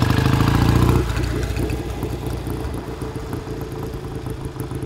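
1965 BSA Lightning 650's parallel-twin engine running as the bike is ridden: loud and close for about the first second, then suddenly more distant and slowly fading as it moves away.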